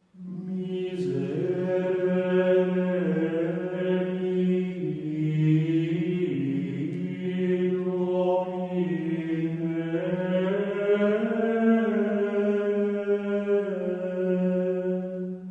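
Mantra-like chant on the soundtrack: a steady low drone held throughout, with a second line above it gliding slowly up and down. It cuts off abruptly at the end.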